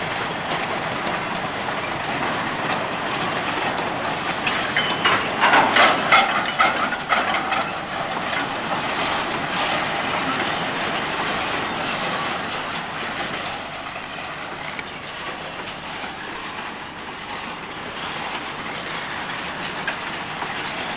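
Steam train running, with a regular clickety-clack of wheels over rail joints and a cluster of louder clanks about five to seven seconds in. This is a sound-effects track laid over the film of a steam locomotive hauling log bogies.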